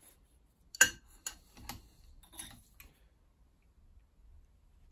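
Metal clicks and clinks of a large adjustable spanner being fitted to the forcing-screw hex of a three-leg gear puller: one sharp click about a second in, then several lighter ones over the next two seconds.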